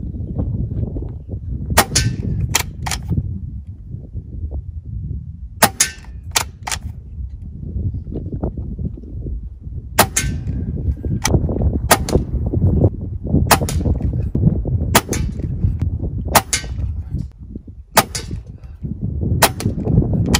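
Gamo Arrow .22 calibre PCP air rifle with a fully shrouded barrel firing a string of shots, each a sharp crack, along with clicks from working the rear cocking lever, about a dozen sharp sounds in all and several in close pairs. A steady low rumble lies under them.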